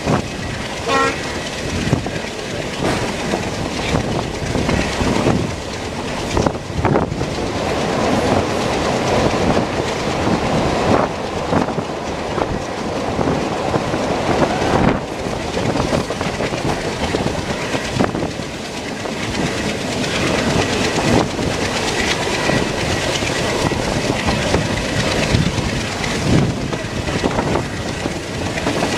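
Passenger train rolling along, heard from a coach window: a steady rumble of wheels and track with irregular clicks as the wheels pass over rail joints.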